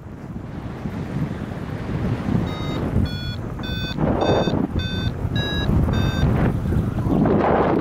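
Paragliding variometer beeping, about two short beeps a second from about two and a half seconds in, the pitch creeping up as the glider climbs in lift. Wind rushes over the microphone throughout, gusting louder twice.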